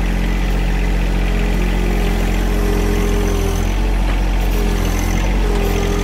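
John Deere 1023E compact tractor's three-cylinder diesel engine running steadily while working the front loader. A whining tone rides on top; it drops out about halfway and returns near the end.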